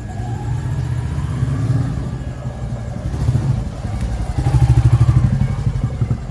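Royal Enfield single-cylinder motorcycle riding up with its exhaust thumping, growing loudest about four and a half to five seconds in as it draws near.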